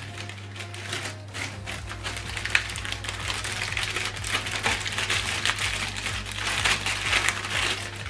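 Paper and plastic battery packaging crinkling and rustling as it is handled and opened, in a dense stream of small crackles, over a steady low hum.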